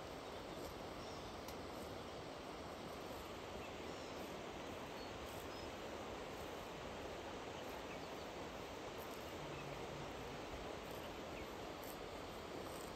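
Steady outdoor ambience: an even rushing noise with no distinct events.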